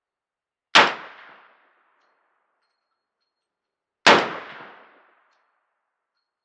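Two gunshots about three seconds apart, each a sharp crack with a short echoing tail.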